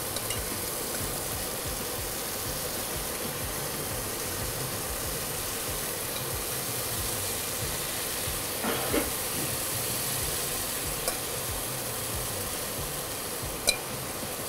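Blackened white perch fillets sizzling steadily in a very hot cast-iron skillet as melted butter is spooned over them, over the steady hum of a range hood fan running at full. A few light metal clinks of the spoon against the pan and butter pot, the sharpest near the end.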